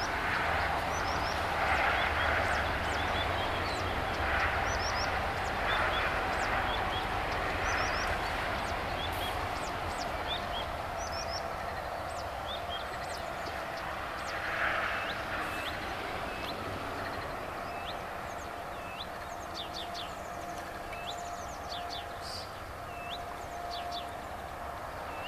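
A small brown warbler singing from a perch: many short, high, quick notes that come in scattered runs and grow busier in the second half. A steady low rumble runs beneath.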